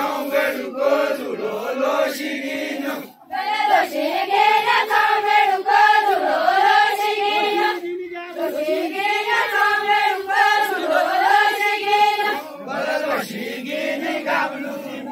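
A group of voices singing a chant-like folk melody in unison for a linked-hands village line dance, breaking off briefly about three seconds in and again about eight seconds in.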